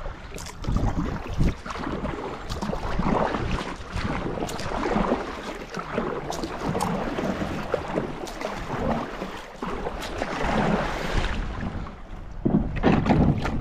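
Kayak paddle strokes splashing through river water, with wind on the microphone and scattered small knocks and drips. Near the end a louder stretch as the plastic hull runs into gravel shallows.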